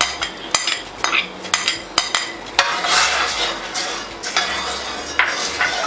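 Metal clinking against a stainless steel pot as soaked rice is tipped into jaggery water, then a steel ladle swishing and scraping as it stirs the rice through the liquid.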